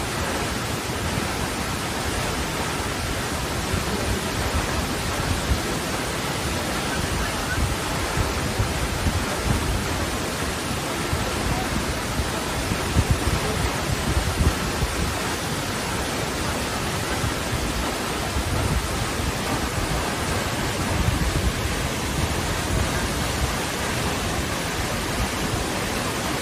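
A tall waterfall pouring down a cliff face: a steady, even rush of falling water, with an uneven low rumble underneath.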